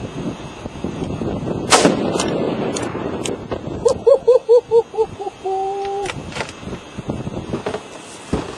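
A single loud rifle shot at a Tannerite target, about two seconds in, with echoes rolling out after it. A little later comes a quick run of short pitched notes that ends in one held tone.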